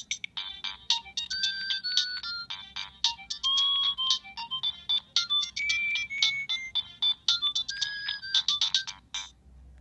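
Nokia 3586 mobile phone playing one of its built-in ringtones: a quick melody of short beeping notes, one note at a time, that stops about nine seconds in.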